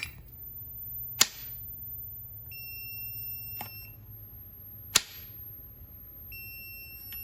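A multimeter's continuity beeper sounds twice for about a second each as the overdrive lockout switch on a 1954 Kaiser Darrin transmission is opened and closed, showing the switch is closing its circuit and working. Two sharp clicks from the switch lever come between the beeps.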